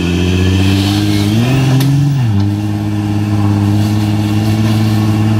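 Volkswagen Touareg's 3.0-litre V6 TDI diesel engine pulling under load as the SUV crawls up a steep muddy step. The revs rise about a second and a half in and drop back, with one sharp click near the two-second mark, then the engine settles to a steady pull.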